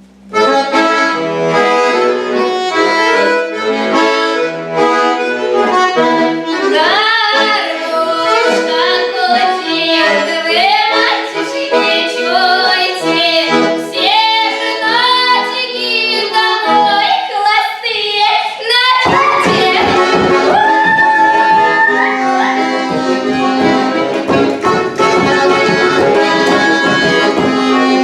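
Accordion music in Russian folk style. For the first two-thirds a melody with gliding, wavering notes runs over the accordion's chords; from about nineteen seconds in, the accordion carries on with steadier held notes.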